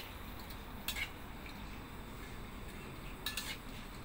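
Metal spatula scraping and clinking against a steel wok while stirring, with a few sharp clinks that ring briefly: near the start, about a second in, and a little after three seconds. A faint, steady hiss sits under them.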